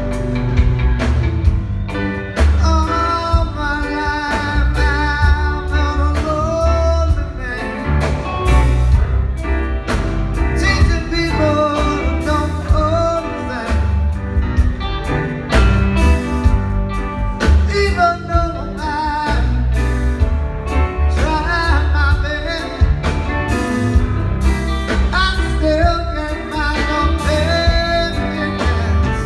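Live rock band playing: guitars, bass guitar, drums and keyboards, with a man singing lead over a strong, steady bass and drum beat.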